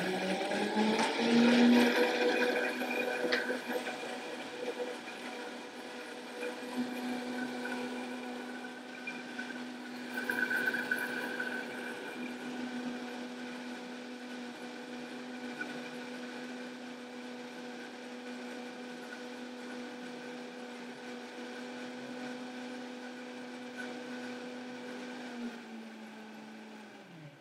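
Countertop blender running, puréeing raw cashews with water and starch into a smooth gravy base. The motor spins up at the start, runs steadily with a churning whir, and winds down near the end.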